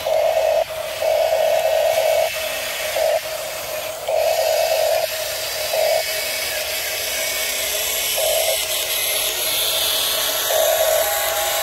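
Huina radio-controlled bulldozer's small electric drive motors and gearboxes whining in short spurts, starting and stopping again and again as it is driven over gravel, over a steady higher hiss.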